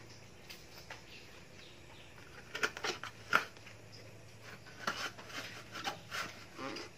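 A wet dish sponge being pushed and rubbed into the neck of a plastic drink bottle: irregular rubbing, squeaks and crackles of the plastic, sharpest a little over three seconds in. A faint steady low hum runs underneath.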